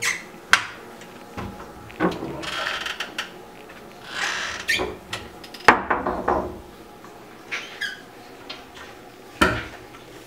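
Wooden cabinet doors being opened and shut: several sharp knocks and clicks, the loudest about half a second in, near the middle and near the end, with two short scraping rustles in between.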